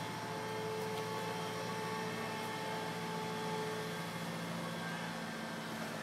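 Mobile crane's engine running steadily: a constant drone with a steady hum in it. One of its higher tones fades out about four seconds in.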